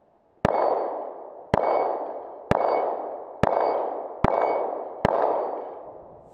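Six shots from a Glock 42 .380 ACP pistol, spaced roughly a second apart, each followed by a long ringing tail that fades before the next.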